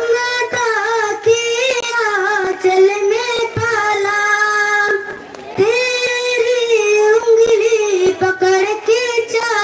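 A boy singing a slow song solo into a microphone, with long held notes and wavering ornaments. He pauses briefly for a breath about five seconds in.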